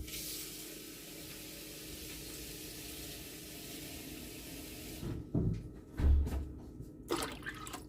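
Water running or being poured for about five seconds as a little more water is added for cooking the rice, stopping suddenly. Then a few knocks of kitchenware, the loudest a dull thud about six seconds in.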